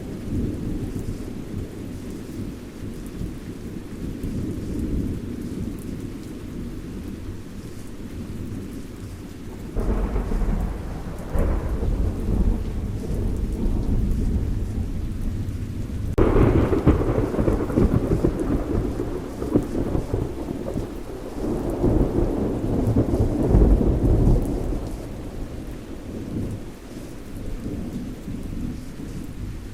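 Thunderstorm: steady rain with low rumbling thunder. A peal starts about ten seconds in, and a sudden, louder crack about halfway through rolls on for several seconds before dying away.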